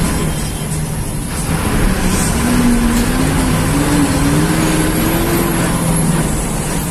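Bus engine and road noise heard from inside the driver's cab while the bus is moving. About two seconds in, the engine note rises for a few seconds as the bus accelerates.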